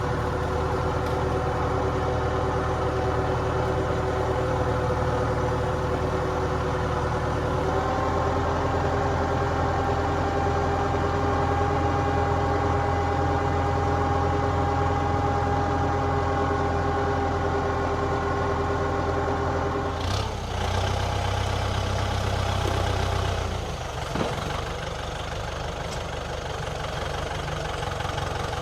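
Kubota tractor's diesel engine running steadily. Its pitch steps up about eight seconds in, shifts again around twenty seconds, and it drops back and gets quieter a few seconds later.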